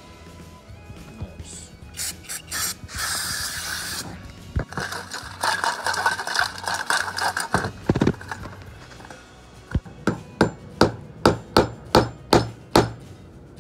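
Differential parts scraping and rubbing about in a stainless steel bowl of cleaner, with a hiss of about a second before it. About ten seconds in comes a run of about eight sharp taps, a little under three a second: a stuck part of the RC differential being knocked out by force instead of sliding free with very little force.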